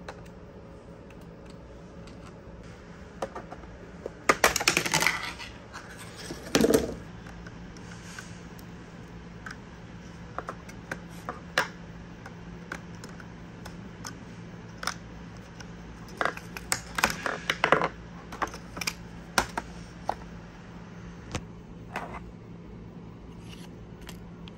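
Clicks, taps and scrapes of a screwdriver and hands working on a laptop's plastic underside and the hard drive's metal caddy: screws being undone, the drive-bay cover coming off and the drive being lifted out. The clicks come singly and in short clusters, loudest around four to five seconds in and again in the second half, over a steady low hum.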